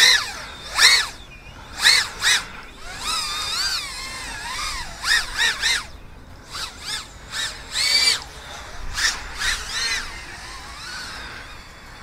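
Eachine Lizard 105S micro racing quadcopter's brushless motors and propellers whining in flight on a 3S battery, the pitch rising and falling with a dozen or so quick throttle blips. A slight vibration can be heard on the accelerations, which the owner suspects comes from flex in the frame's arm joints.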